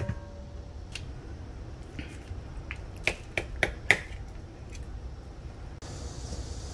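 Light ticks and taps as green peppers and a knife knock against a wooden cutting board while the peppers are slit and shaken to empty their seeds. The sharp clicks come scattered, bunched together near the middle, over a faint low hum.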